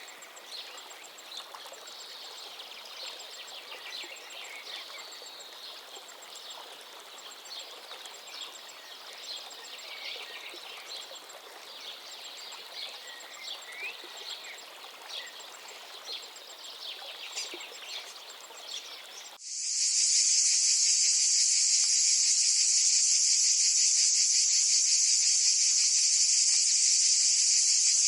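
Birds chirping over a steady background hiss, then, about two-thirds of the way in, an abrupt cut to a loud, steady, high-pitched chorus of insects.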